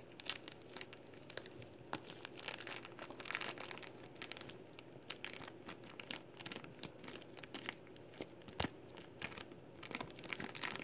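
Clear plastic prize packet crinkling as fingers unwrap it, with many small crackles throughout and one sharper click about eight and a half seconds in.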